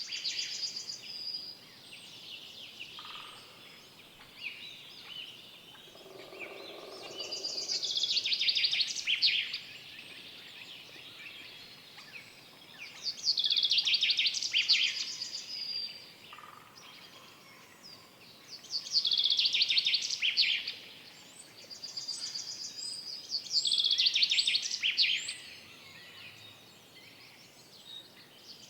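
A songbird in a forest repeats a bright, high-pitched song phrase of about two seconds roughly every five to six seconds, over fainter calls from other birds. A short lower-pitched call sounds about six seconds in.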